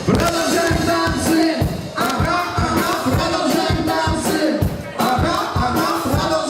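Live cover band playing an up-tempo pop song through a club PA, with a steady kick-drum beat and a sung melody line.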